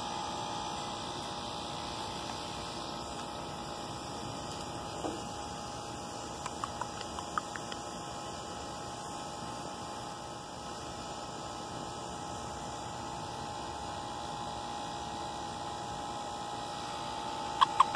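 Steady electrical hum with a constant tone running through it, and a few faint clicks about six to seven seconds in.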